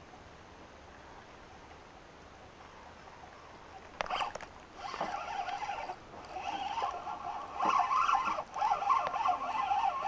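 Fishing reel cranked while a hooked fish is played: a chattering, ratchety whir of the reel's gears that starts after a click about four seconds in and gets louder in the second half.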